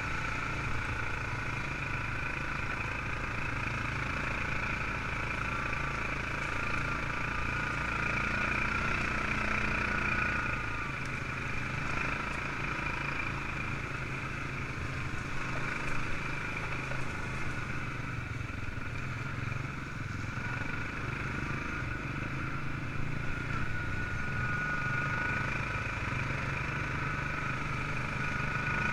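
ATV engine running steadily as the quad rides along, its pitch rising and falling slightly.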